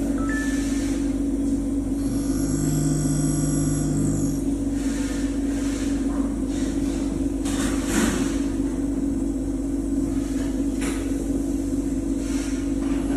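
CNC end mill grinding machine running with a steady machine hum. A higher whine comes in briefly a few seconds in, and short hissing sounds follow later.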